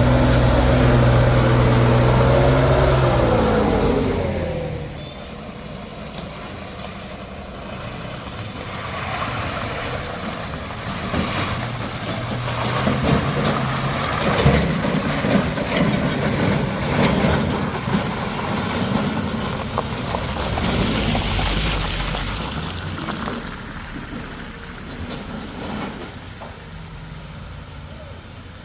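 Heavy diesel truck engine labouring on a steep climb: a steady droning note that falls away about four seconds in. Rougher, uneven engine and road rumble follows, with brief high squeals and hisses, easing off near the end.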